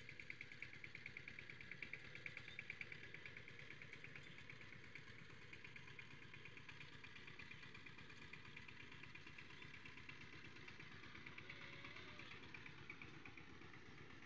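Faint steady outdoor background: a small engine running at an even idle, with a high, rapid insect trill over it.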